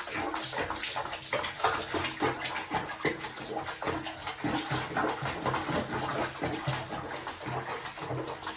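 Water sloshing and splashing in a plastic basin with a cat sitting in it, in quick irregular small splashes.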